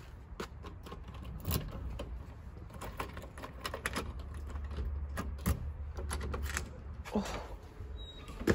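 Scattered clicks and knocks of a lever door handle being worked and the door opened, over a steady low rumble.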